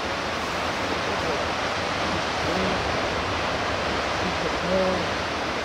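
Steady rush of sea surf breaking on a boulder beach below a cliff.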